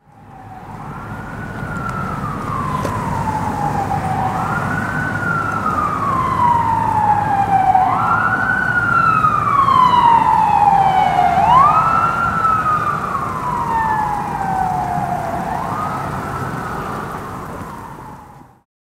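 Ambulance siren on a slow wail: each cycle the pitch rises quickly, then slides slowly back down, five times over, with a low rumble underneath. It grows louder toward the middle and fades away near the end.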